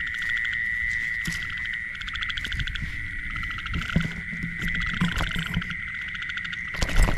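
A night-time chorus of calling animals: a steady, high, ringing trill with rapid pulsing, and some low handling noise underneath. A few loud knocks come near the end.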